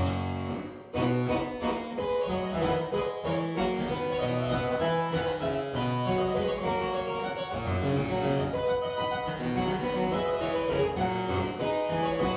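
Solo harpsichord playing the instrumental introduction to a baroque tenor aria: a quick, continuous run of plucked notes, opening with a low chord that fades about a second in.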